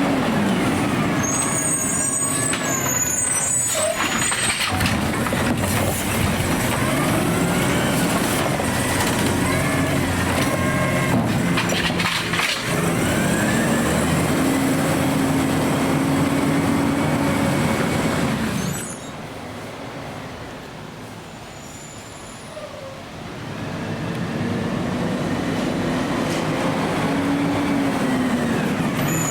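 Automated side-loader garbage truck with an AutoReach arm: the engine revs up and down under hydraulic load with a whine rising and falling with it, and thin high squeals now and then. About two-thirds of the way through it drops quiet for a few seconds, then revs up again.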